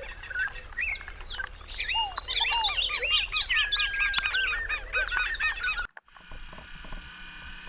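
A chorus of many birds calling: overlapping short chirps and whistled notes that rise and fall, some repeated in quick series. About six seconds in it cuts off abruptly to a much quieter stretch.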